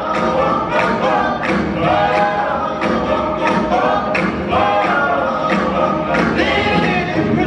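A recorded song playing for a dance routine: several voices singing over a steady beat.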